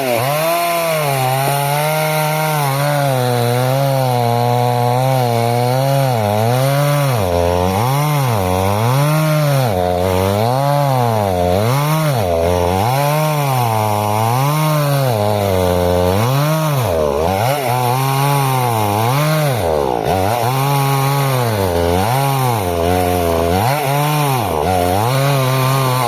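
Chainsaw running under load while cutting through a large log, its engine speed dipping and recovering about once a second.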